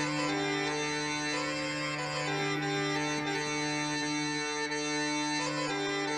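Bagpipe music: a steady drone under a piped melody that steps from note to note, the opening of a country-rock song.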